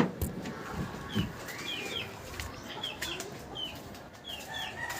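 Small birds chirping in short, repeated, hooked calls, with one longer arched call just before two seconds in; a couple of short knocks sound near the start and about a second in.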